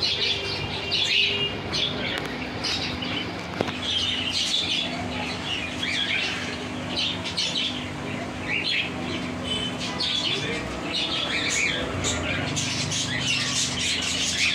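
Small birds chirping and squawking in quick, irregular calls, over a steady low hum.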